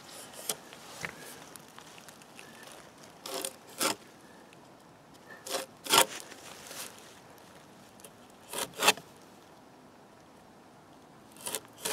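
A knife blade scraping along the bark of a downed silver birch log, shaving off the papery outer bark. It goes in short strokes, two at a time, four pairs a couple of seconds apart.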